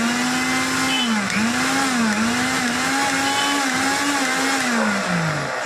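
Mixer grinder's universal motor running with a high whine. Its pitch dips and recovers a few times, as if pulsed or loaded, then it winds down near the end.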